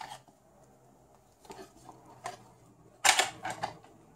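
Light plastic clicks and rattles from handling a toy-grade pistol-grip RC transmitter: a couple of faint clicks, then a louder cluster about three seconds in.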